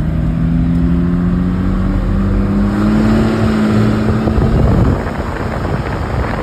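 Cummins inline-six diesel in a Ford Excursion accelerating, heard from inside the cab: the engine note climbs steadily for about four and a half seconds, then falls away into wind and road noise near the end.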